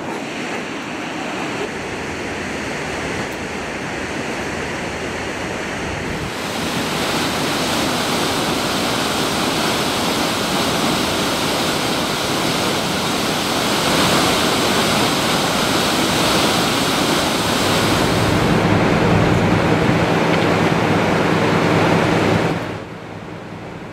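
Steady rushing roar of the Stigfossen waterfall and its spray. The noise steps louder about six seconds in and fills out deeper around eighteen seconds, then drops suddenly near the end.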